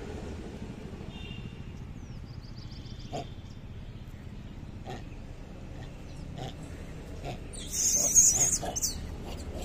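Rhesus macaque giving a short, shrill scream lasting about a second, near the end, over a steady low background hum with a few faint clicks earlier.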